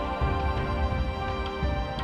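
Background music: sustained chords over a pulsing bass.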